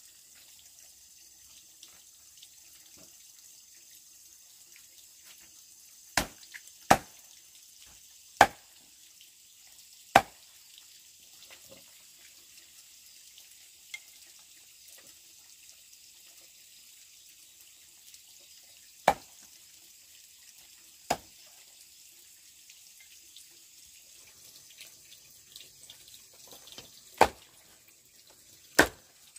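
Water dripping, single drops falling with sharp plinks about eight times at irregular gaps of one to nine seconds, over a faint steady hiss.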